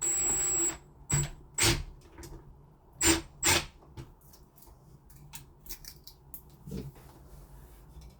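Small metal screws and bolts from a lock's fixing pack clinking as they are handled: a brief rustle at the start, then four sharp, ringing metallic clinks in the first few seconds, then a few faint ticks.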